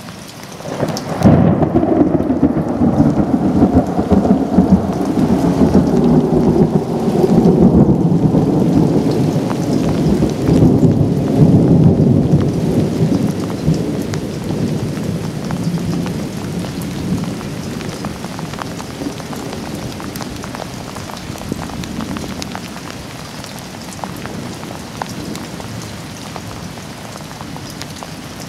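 Thunder: a sudden crack about a second in becomes a long low rumble that rolls on for some ten seconds, then slowly dies away. Steady rain falls throughout.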